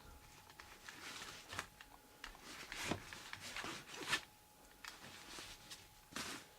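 Soft rustling and scraping of objects being handled, with a few sharp clicks, the loudest near the middle, over a faint steady high hum.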